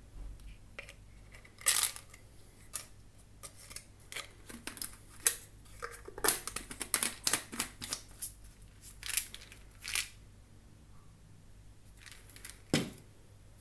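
Plastic supplement tub being handled and its screw cap twisted back on: a string of sharp plastic clicks and scrapes that stops about ten seconds in, then a single knock near the end.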